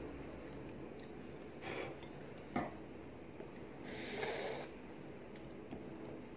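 A person sniffing and breathing hard through the nose and mouth while eating very spicy curry, with a longer hissing breath about four seconds in and a small click before it.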